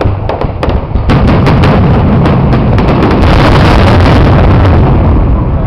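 Aerial fireworks bursting: separate sharp cracks, then from about a second in a dense, continuous barrage of booms and crackling, as in a show's finale.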